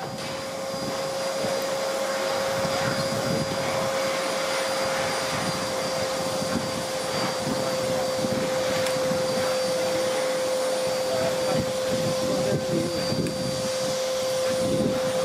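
Steam locomotive letting off steam: a steady rushing hiss with a single unwavering high tone running through it.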